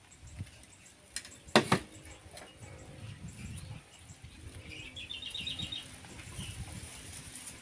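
A person eating rice with a spoon from a plate: two sharp clinks of the spoon on the plate about a second and a half in, with soft chewing and handling sounds. About five seconds in, a bird calls a quick run of short chirps.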